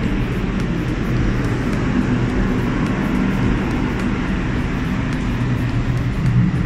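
Steady low drone of a ship's machinery, a few low humming tones under an even rushing noise that does not change.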